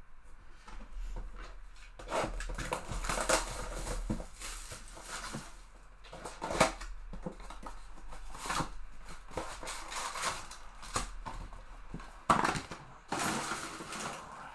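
A cardboard trading-card hobby box being opened by hand and its wrapped card packs pulled out and set down on a table: irregular rustling and scraping of cardboard and pack wrappers with a few sharp taps.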